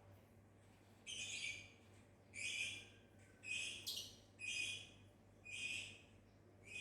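Lovebird calling: a string of short, high-pitched calls, about one a second, starting after a silent first second.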